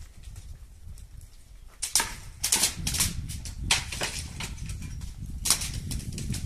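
Footsteps scrambling over rocky ground: irregular crunches and scrapes of gravel and loose stone underfoot, sparse at first and more frequent from about two seconds in, over a steady low rumble.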